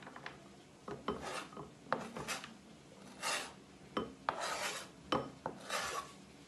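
A kitchen knife scraping chopped cheese off a plastic chopping board into a bowl: a series of short scraping strokes with a few light knocks.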